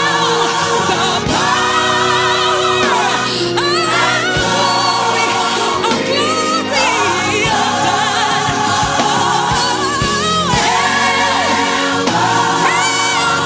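Gospel choir singing with instrumental accompaniment, voices holding wavering sustained notes.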